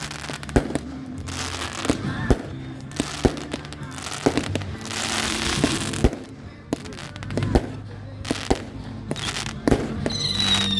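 Fireworks going off: a string of sharp bangs and crackles, with a hissing spell about halfway through. Near the end a screecher firework starts, giving a high falling whistle.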